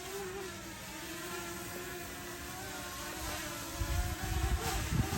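Potensic Atom quadcopter hovering, its propellers giving a steady multi-tone whine whose pitch wavers as the motors make adjustments against the gusts. From about four seconds in, gusts of wind buffet the microphone with low rumbles.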